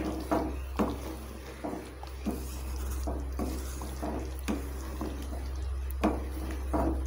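A spoon stirring thick egg curry gravy in a metal kadai: wet sloshing of the sauce with about ten irregular light knocks and scrapes of the spoon against the pan.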